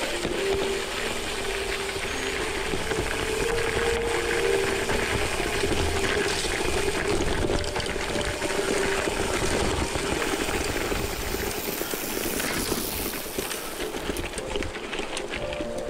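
Gravel bike tyres rolling over a loose gravel road: a steady crunching rush of gravel under the wheels.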